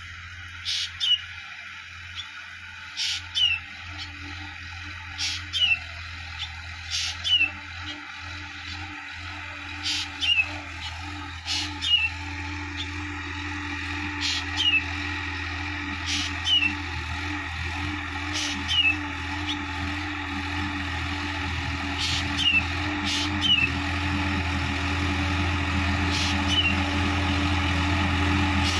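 Sonalika DI-50 RX tractor's diesel engine running steadily while tilling, growing louder as it comes closer. Over it a bird calls again and again: short, sharp calls, each ending in a falling whistle, about one every one to two seconds.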